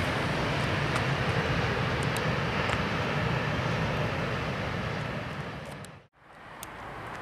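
Distant freight train rolling past, a steady noise of its wagons that slowly fades and cuts off about six seconds in.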